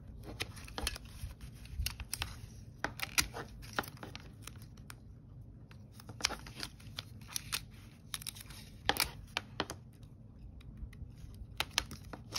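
Double-sided tape being pulled from a handheld tape dispenser and torn off against its cutter, then pressed onto a card cover. Scattered small clicks and short rasps of handling, strongest about three seconds in and again about nine seconds in.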